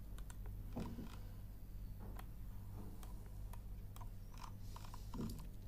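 Scattered computer mouse clicks, single sharp ticks at uneven intervals, over a steady low electrical hum.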